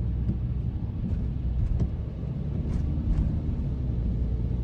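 Car driving in heavy rain: a steady low road and engine rumble, with a few faint ticks.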